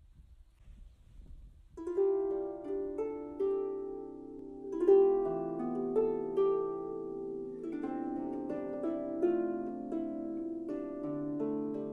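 Small wooden harp being plucked: a slow melody of ringing notes over lower sustained notes, beginning about two seconds in after faint low noise.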